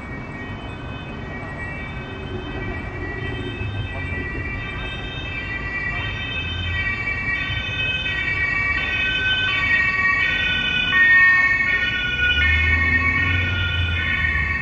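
Emergency vehicle's two-tone siren, alternating between a high and a low pitch and growing louder as it approaches, with a low traffic rumble near the end.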